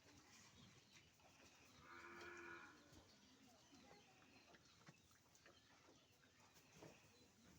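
A cow mooing once, a short call under a second long about two seconds in, over faint scattered clicks and rustling.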